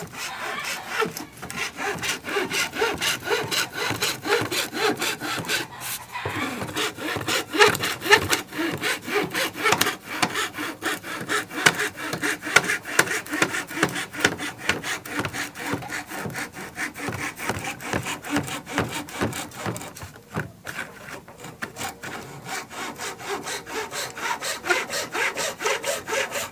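Hacksaw cutting through a sheet of 3 mm caobilla plywood in quick back-and-forth strokes, with short pauses about six seconds in and again near twenty seconds.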